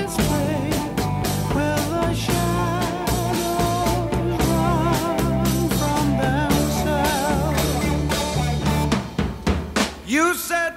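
Background song in an instrumental passage: a steady drum kit beat with a melody line over it. The music thins out briefly near the end.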